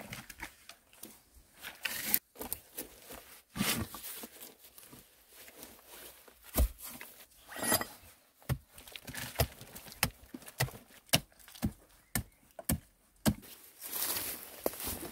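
Hand digging and clearing in a dirt pit: irregular sharp knocks and dull thuds of a digging tool striking earth, with scraping and the rustle of sticks and soil between strikes.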